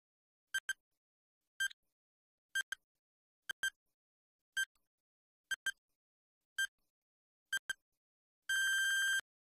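Quiz countdown-timer sound effect: short electronic beeps about once a second, many in quick pairs, as the timer counts down from nine. It ends in a longer beep about 8.5 seconds in, marking time up.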